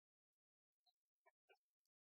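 Near silence, with a few faint, very short clicks.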